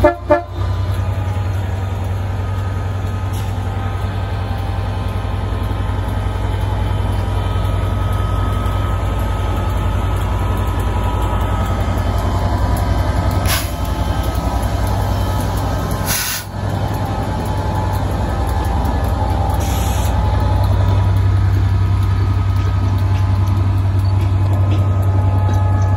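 Class 67 diesel locomotive's EMD two-stroke V12 engine running under power as the train pulls away, a steady low drone with faint higher tones over it, growing a little louder near the end.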